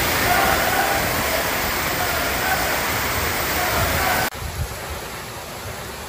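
Floodwater gushing down a ramp in a loud, steady rush. About four seconds in it cuts off abruptly, giving way to the quieter, even hiss of heavy rain.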